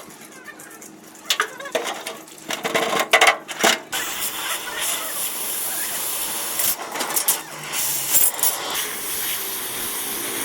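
Several sharp clicks and knocks in the first few seconds, then a steady hissing noise.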